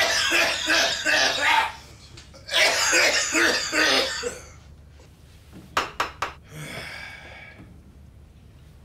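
A person coughing hard in two harsh fits, each a rapid run of coughs lasting about a second and a half. A few sharp clicks follow.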